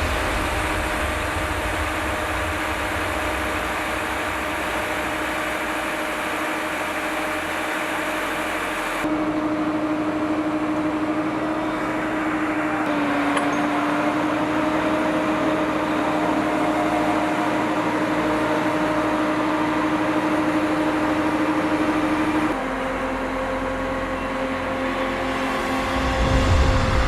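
Truck-mounted knuckle-boom crane (ASELKON ASK 335) running: a steady engine and hydraulic hum whose pitch and level shift abruptly a few times, about a third of the way in and again near the end.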